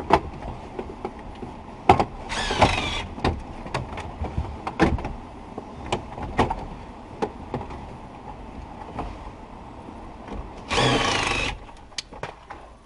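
A cordless drill/driver runs in two short bursts, about two and a half seconds in and again near eleven seconds, its motor whine shifting in pitch as it drives screws in the dash. Around them, scattered clicks and knocks of the Ford F-150's plastic dash panels being worked loose.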